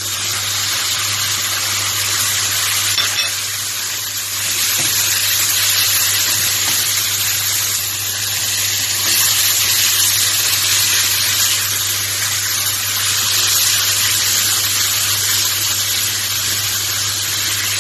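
Diced tomatoes and green chili sizzling loudly in hot oil and garlic in a frying pan, a steady hiss that starts abruptly as they hit the oil.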